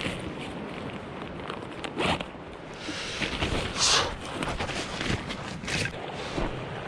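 Gear being handled while setting up camp: irregular rustles and scrapes, the loudest about two and four seconds in, over a steady outdoor background.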